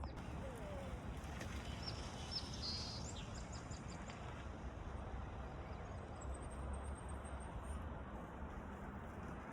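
Outdoor ambience: a steady rush of noise, with a few short, high bird chirps about two to three seconds in and a high trill around six to eight seconds in.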